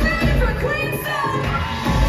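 Live pop musical-theatre number: a band with heavy bass and drums under women's voices singing. The bass and drums drop out for about a second midway and come back in near the end.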